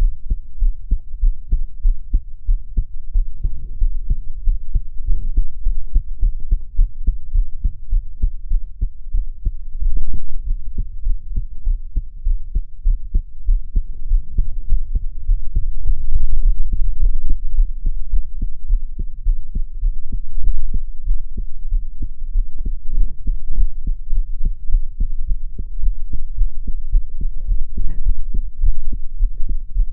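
A girl's heartbeat, an unbroken run of low thumps, recorded while she is crying.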